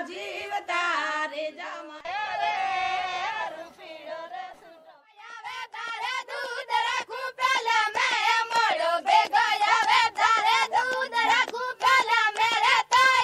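A song sung in a high, child-like voice. After a short lull about four seconds in, it picks up again over a steady percussive beat.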